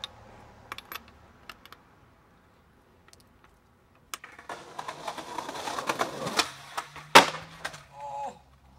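A few sharp metal clicks of a skate tool working a skateboard truck, then skateboard wheels rolling on concrete, growing louder, ending in one loud hit as the skater slams about seven seconds in, with a short vocal cry just after.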